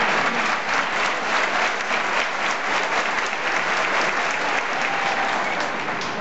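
Large crowd of tennis spectators applauding, many hands clapping at once, slowly dying down toward the end.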